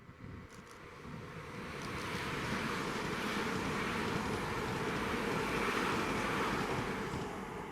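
A train passing at speed, its rushing wheel-and-air noise swelling over the first few seconds, holding, then fading near the end, with no horn.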